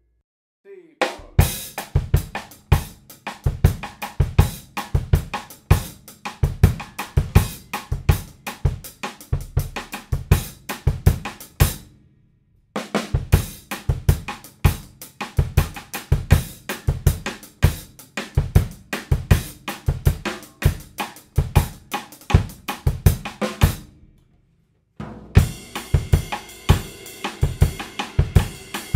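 Background music with a steady drum-kit beat that drops out briefly twice.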